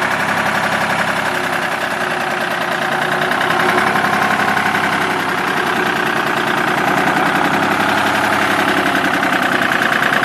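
A Goldoni 240 Universal tractor's Lombardini 11LD626-3 three-cylinder air-cooled diesel engine idling steadily, with a fast, even beat of firing pulses.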